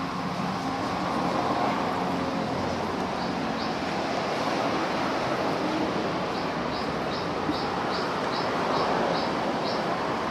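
Steady background din, like a busy roadside. In the second half a run of about ten short, high chirps repeats about three times a second.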